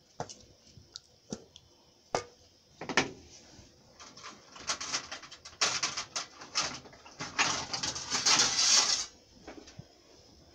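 Wooden spoon knocking and scraping in an aluminium pot of watery vegetable stew: a few single knocks, then a longer run of stirring with scraping and splashing, loudest just before the end.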